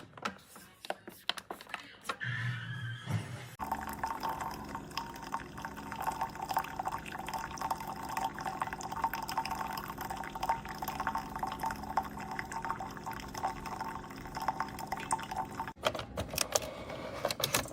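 Keurig K-Slim pod coffee maker brewing: a steady stream of hot water running into the cup over a low pump hum. It starts about three and a half seconds in and cuts off near the end, followed by a few clicks.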